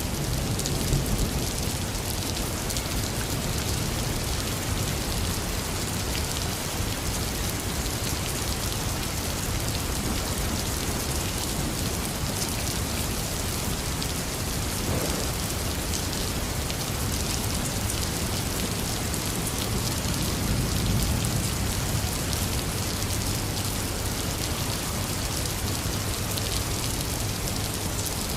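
Heavy rain falling steadily on a surface, with low thunder rumbling at the start and again about two-thirds of the way in.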